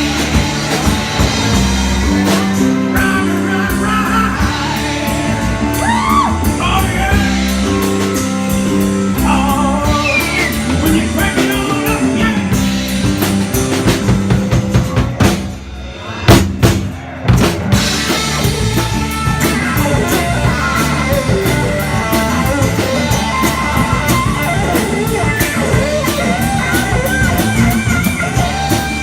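Live rock band playing: drum kit and electric guitar. About halfway through the music drops briefly, then a few loud hits land before the guitar-led playing picks up again.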